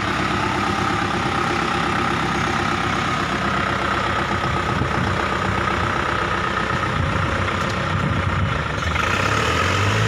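Kubota MU4501 tractor's four-cylinder diesel engine running steadily at low revs as the tractor is driven down off a truck and away. Near the end a second, lower engine note rises and holds.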